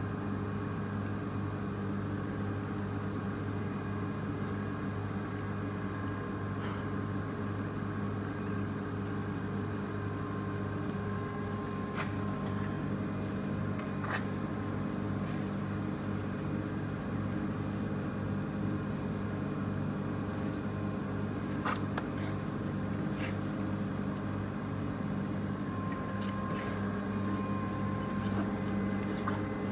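Baader 694 meat-bone separator running steadily under load as it presses cod into mince, a constant low hum with a deep drone. A few short clicks come now and then.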